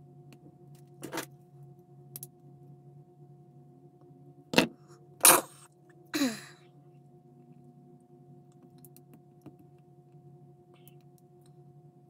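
Small parts and tools handled on a workbench during model assembly: a few sharp clicks and knocks, the loudest two about half a second apart near the middle, followed by a short falling squeak. A steady low hum runs underneath.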